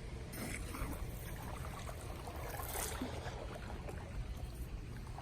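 Water running and trickling steadily outdoors by a pool.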